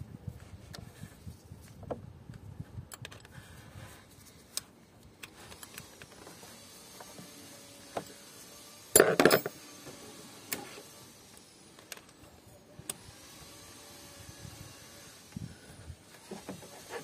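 Hand tools working the tandem pump bolts under the engine: scattered light metal clicks and scrapes of a wrench and hex key, with one loud short rattle of metal about nine seconds in.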